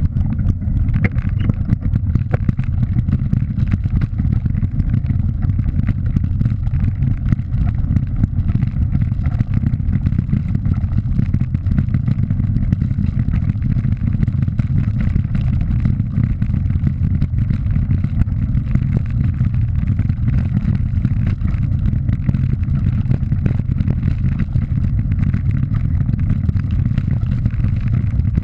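Steady wind rumble buffeting the bike-mounted camera's microphone while riding a mountain bike down a loose gravel track, with a fine rattle of tyres and bike over the stones.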